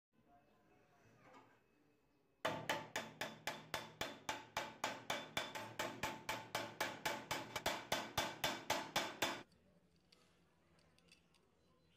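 Hammer striking the metal frame of a hacksaw clamped in a bench vise: a fast, even run of ringing blows, about four a second, that starts about two and a half seconds in and stops abruptly about seven seconds later.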